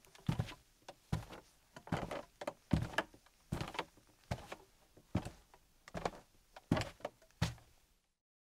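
Footsteps on wooden floorboards at an even walking pace, about one step every 0.8 s, each a low thud with a light creak or scuff, heard close in a small room. They cut off suddenly near the end.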